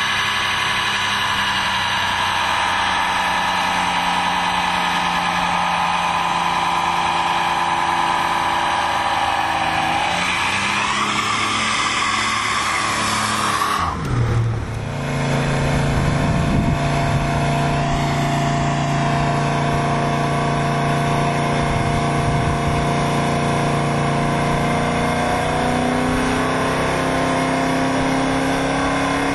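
1970 Plymouth Cuda's 340 Six Pack V8 (three two-barrel carburettors) held at high, steady revs during a burnout with the rear tyres spinning. About halfway through, the engine note drops sharply and then runs steadily at lower revs, climbing again near the end.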